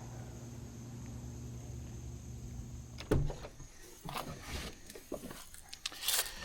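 A steady low hum with a faint high whine. About three seconds in it gives way to a sharp click, then irregular knocks, clatter and rustling of things being handled.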